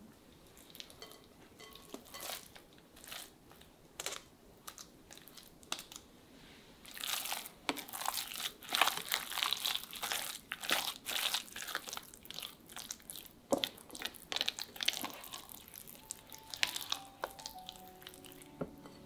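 Silicone spatula stirring grated roasted beetroot into a thick yogurt and tahini paste in a glass bowl: wet squelching and scraping with sharp taps against the glass. The first seconds hold only scattered taps. The stirring is densest from about seven seconds in to about sixteen.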